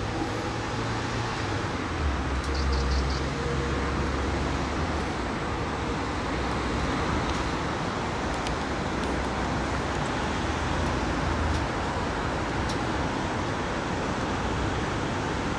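Steady outdoor street-traffic noise, a continuous hiss with a low rumble beneath that swells for a few seconds from about two seconds in, as of a vehicle passing.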